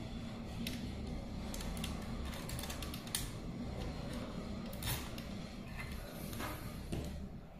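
Plastic handling noise of a fiber optic splice closure's tray base: light creaks and a few sharp clicks as loose tubes are pressed and tucked into it, over a steady low hum.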